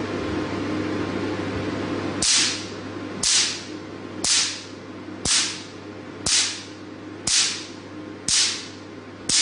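A steady hum for the first two seconds, then a picosecond Q-switched Nd:YAG laser fires single pulses onto black laser test paper about once a second. Each pulse hits with a crisp, sharp snap, eight in all.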